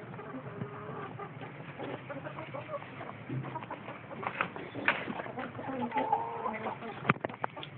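Chickens clucking softly, with a short warbling call about six seconds in. Several sharp clicks and knocks near the end as the wooden coop door and latch are handled.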